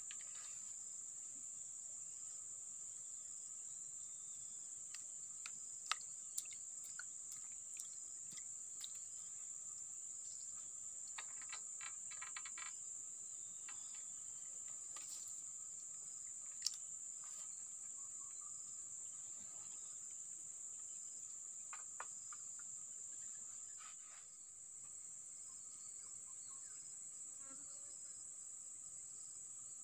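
Steady high-pitched insect drone, with a few sharp clicks and a brief rapid rattle about midway.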